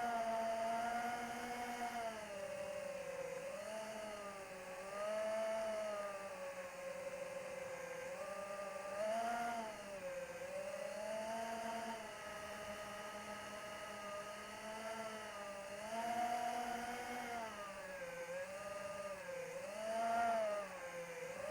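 Electric motor and propeller of an AtomRC Dolphin FPV plane whining in flight, its pitch rising and falling again and again as the throttle is worked.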